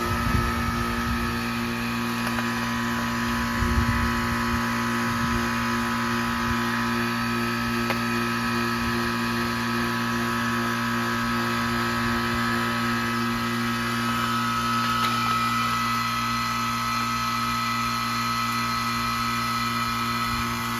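Carrier WeatherMate 38YCC heat pump outdoor unit running: a steady compressor hum with several fixed tones, a higher whine in it growing stronger about two-thirds of the way through.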